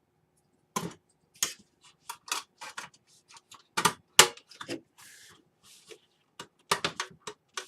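A thin metal I/O shield being pressed into a computer case's rear opening: a run of irregular sharp metallic clicks and taps as it pops into place, the loudest about four seconds in.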